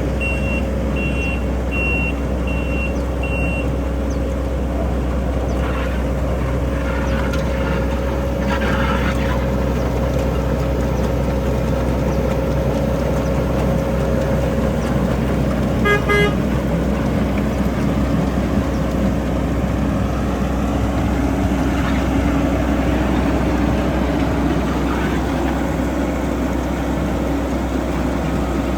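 Leeboy 8530 asphalt paver's Kubota diesel engine running steadily. A backup alarm beeps for the first three seconds or so, and a short horn toot sounds about sixteen seconds in.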